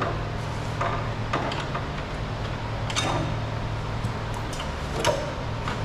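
A few short, light clicks and knocks from a loosened car body part being handled, over a steady low hum.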